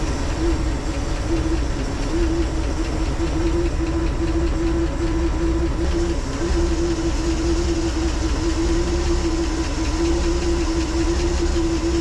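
Gasoline marine inboard engine running steadily at idle just after a cold start, with a steady low hum over its rumble.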